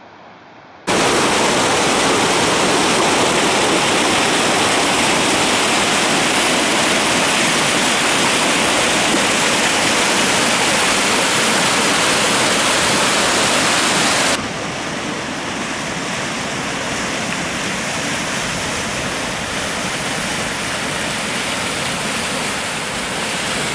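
Forest stream at spring high flow, about 1.4 m³/s, pouring through a concrete V-notch weir: a loud, steady rush of churning white water. It starts suddenly about a second in and drops to a somewhat lower rush a little past the middle.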